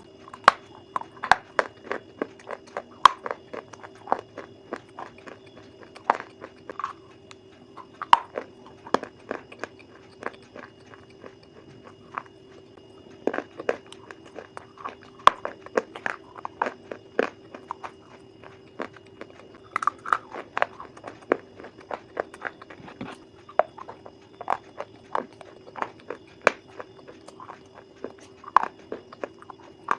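Crunchy food being bitten and chewed: sharp, irregular crunches a few times a second, over a steady hum.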